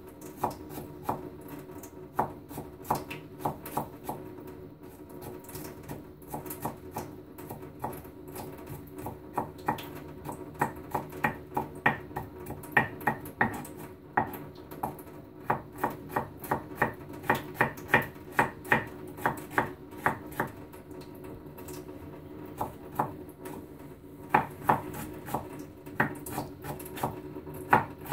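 Kitchen knife chopping food on a cutting board, sharp strokes at about three a second in runs with short pauses.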